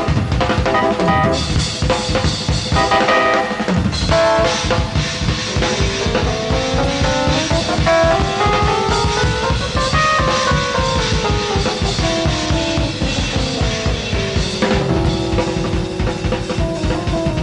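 Jazz-fusion band playing live: a busy drum kit with bass drum and snare drives under pitched instruments, while a run of notes climbs steadily to a peak about ten seconds in and then comes back down.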